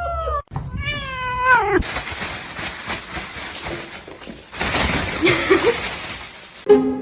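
A domestic cat meowing: a short call cut off abruptly, then a long drawn-out yowl with a wavering, falling pitch about a second in. A few seconds of broad, noisy rustling follow.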